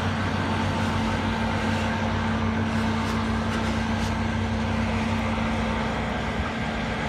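A steady, low machine hum under a constant rushing hiss, holding at an even level throughout.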